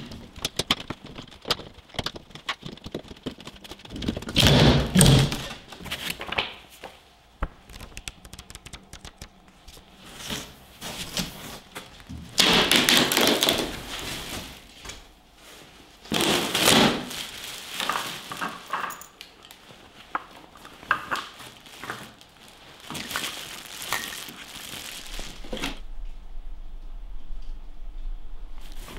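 Crate being unpacked by hand: a screwdriver levering metal clips off plywood with clicks and scrapes, a heavy thump about five seconds in, then wood knocking and rough rustling as a foam packing block is handled.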